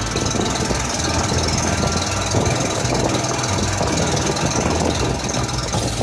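Engine of a small passenger boat running steadily while under way, a loud, constant low drone.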